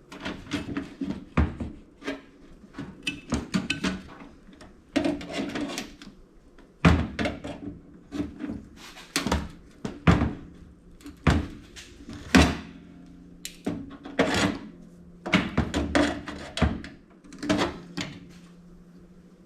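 Wire cutters snipping through a toaster oven's internal wiring, with irregular sharp clicks and clunks as the metal parts are handled, about a dozen loud ones.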